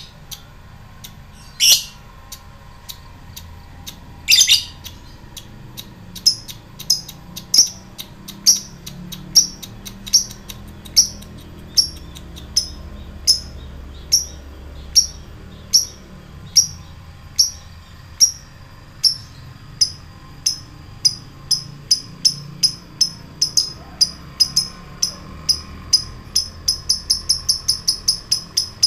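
Lovebird giving three loud, harsh calls, then a long run of short, sharp ticking chirps (the 'ngetik' call) that speed up from about one a second to several a second near the end.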